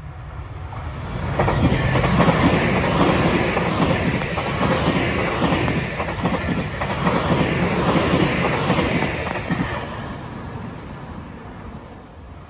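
Electric train passing on Tobu Railway track, its wheels clattering rhythmically over rail joints. The sound swells about a second and a half in and fades away near the end.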